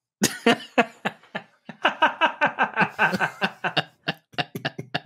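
A man laughing: a long run of quick, short chuckles, about five a second, for most of five seconds.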